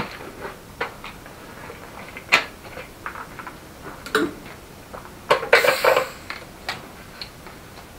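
Scattered light metallic clinks and taps of tools and metal parts being handled, with a louder rattle of clinks a little past the middle.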